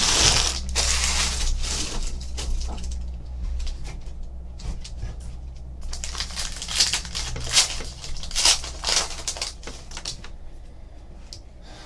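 Foil trading-card pack wrapper handled, crinkling and tearing open by hand, with cards and wrappers rustling. The sharpest crackles come in the middle, as the pack is ripped apart.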